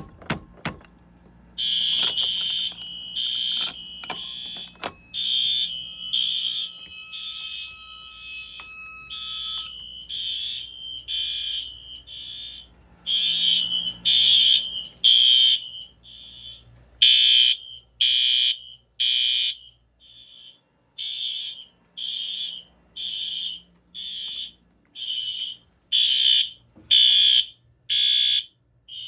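A few clicks as the fire alarm pull station is pulled. Then, about two seconds in, the fire alarm horns start sounding: a loud, high-pitched horn pulsing about once a second, the pulses uneven in length and spacing, going on steadily.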